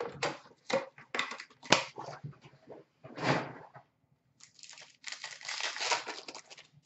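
Trading-card packs handled in their cardboard box, with a few sharp rustles and knocks. About four and a half seconds in, a foil card pack is torn open and crinkles.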